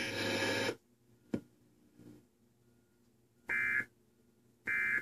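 Emergency Alert System end-of-message data bursts: two short, shrill digital squawks about a second apart near the end, marking the close of the alert. Before them a loud buzzing noise cuts off abruptly under a second in, followed by a single click.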